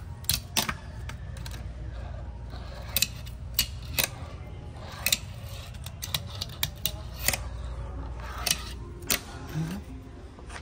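A fingerboard (miniature skateboard) being tricked on a wooden knife block and countertop: sharp, irregular clacks as the board's tail, trucks and wheels strike the wood, about a dozen in all, over a steady low hum.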